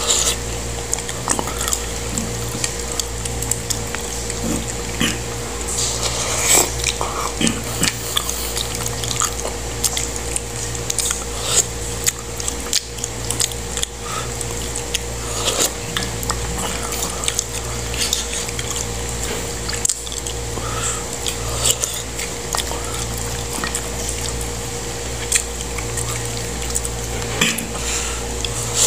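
Eating sounds: a plastic spoon clinking and scraping in a ceramic mug of hot soup, with wet mouth sounds and slurps, in scattered short clicks over a steady low hum.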